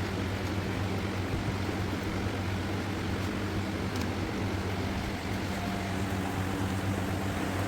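Steady low mechanical hum with a constant pitch and an even level, room background noise, with a faint click about four seconds in.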